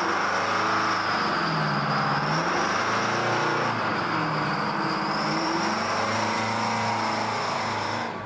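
Fire engine's motor running steadily, its pitch slowly rising and falling, with a steady high whine above it.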